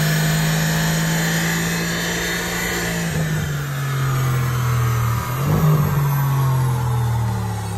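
Mercedes car on a rolling-road dynamometer, its driven wheel spinning on the steel rollers: engine note and the whine of the tyre on the rollers, the pitch slowly falling as the run winds down. There is a brief waver in the sound about five and a half seconds in.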